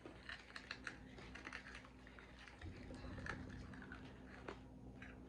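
Freeze-dried Skittles crunching as several people bite and chew them at once: rapid, dry crackles that thin out about halfway through.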